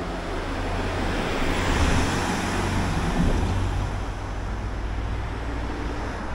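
Road traffic: a car passes close by, its tyre and engine noise swelling about two seconds in and then fading, over a low steady rumble.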